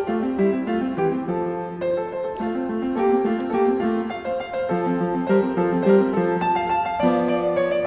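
Background piano music: a steady flow of notes and chords changing every few beats.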